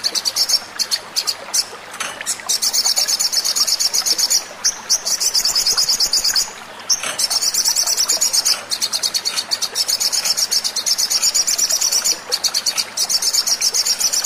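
Olive-backed sunbird (sogon) song: rapid, high-pitched trills of repeated chirps in bouts of a second or two, broken by short pauses. It is a lure recording of the kind played to trigger sunbirds into song.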